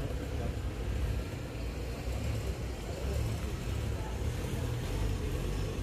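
Steady low rumble of outdoor street ambience, with no distinct single event standing out.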